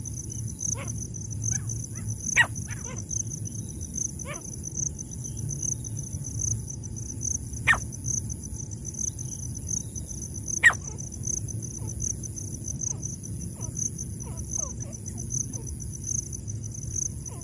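Francolin (teetar) giving short, sharp single call notes: three louder ones several seconds apart, with fainter ones between. Under them runs a steady, fast-pulsing drone of insects.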